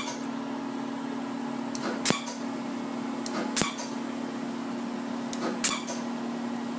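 Pulsed dye laser firing on the skin, four sharp snaps about one and a half to two seconds apart, over the laser unit's steady low hum.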